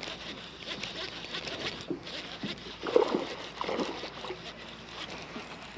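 Water splashing and sloshing at the kayak's side, with handling rustle and knocks, as a hooked bass is fought to the boat.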